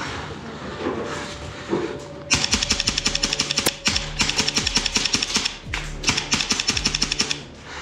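Polarstar Kythera airsoft gun, running on a CO2 cartridge, firing on full auto as a rapid stream of sharp clicks. It comes in three long bursts beginning about two seconds in, with short pauses between them.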